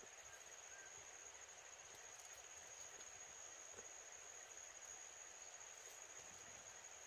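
Faint night insect chorus of crickets: one steady high-pitched trill over a low hiss, with a few faint ticks.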